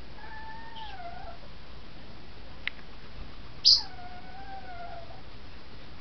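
A pug whining: two long, wavering, high-pitched cries, one near the start and one a little after the middle. Just before the second whine, a brief shrill chirp is the loudest sound.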